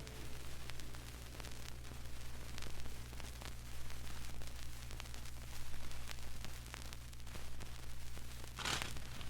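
Vinyl record surface noise between tracks: a steady low hum with scattered crackling clicks, and one short hissy burst near the end.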